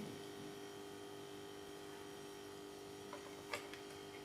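Quiet room tone with a steady faint hum and a single light click about three and a half seconds in.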